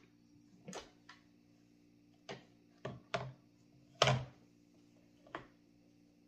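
Plastic clicks and knocks from a food processor's lid being twisted off and handled, with the loudest knock about four seconds in as the lid is set down on the stone countertop.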